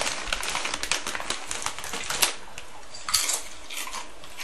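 A dog crunching crisps: a fast, irregular run of sharp crackles and clicks, with louder crunches about two seconds in and again about three seconds in.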